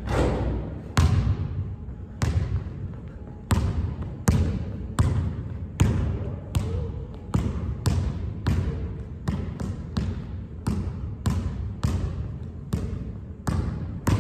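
Basketball bouncing on a hardwood gym floor, dribbled in a steady rhythm that quickens to about two bounces a second. Each bounce echoes through the big hall.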